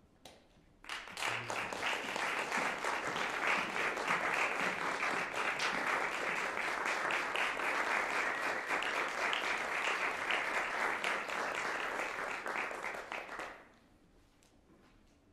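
Audience applauding: many hands clapping, starting about a second in, holding steady, then dying away near the end.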